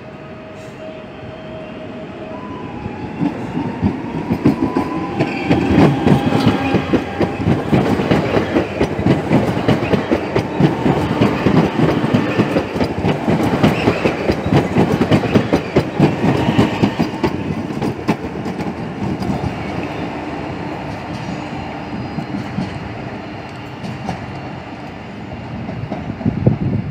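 Two coupled PESA Acatus Plus (EN64) electric multiple units pulling out and passing close by, wheels clattering over the rail joints. It grows louder over the first few seconds, stays loud for about ten seconds, then fades as the train moves away.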